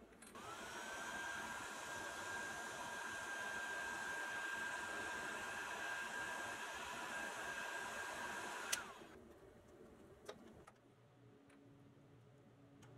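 Electric heat gun running: its fan whines up to speed at the start and blows steadily for about eight seconds, then it is switched off with a click and the whine falls away as the fan spins down.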